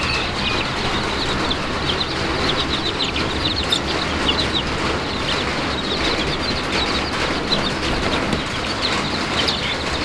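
Rain falling on a metal roof overhead gives a steady hiss, with many short, high chirps from the small birds in the pen, bantam chicks and button quail.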